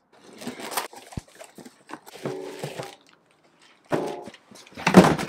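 Cardboard box and plastic wrapping being handled as parts are lifted out: rustling and scraping, a sharp click, and two short squeaks. The loudest moment is a rustle and knock near the end.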